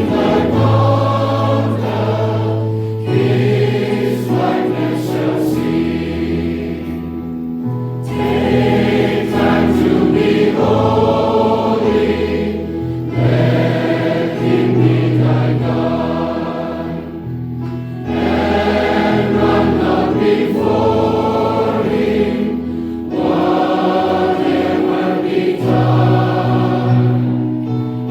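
A choir singing a hymn in held chords, phrase after phrase, with short breaks every few seconds.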